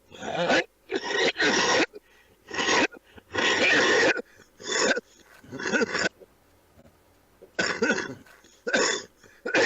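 A man coughing over and over, about nine hard coughs in short bouts, with a pause of about a second and a half midway.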